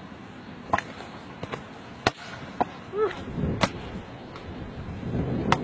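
A volleyball being struck during a beach volleyball rally: about five sharp slaps spread irregularly through the moment.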